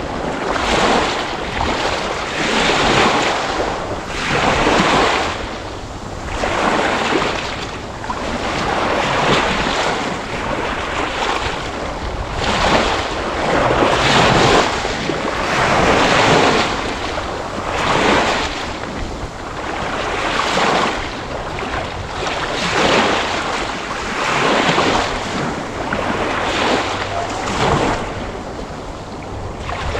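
Sea waves washing in one after another: a rushing surf noise that swells and ebbs about every two seconds.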